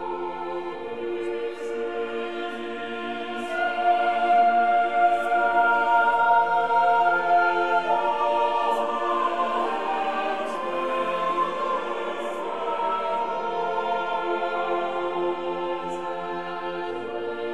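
Slow background choral music with long held notes in several voices. It swells louder a few seconds in and eases back in the second half.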